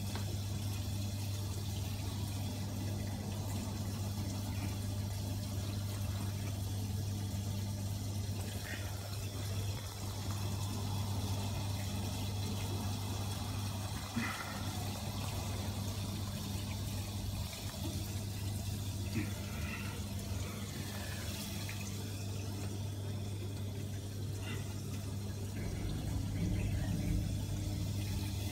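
Aquarium water circulating, with the steady low hum of its pump under an even wash of running water.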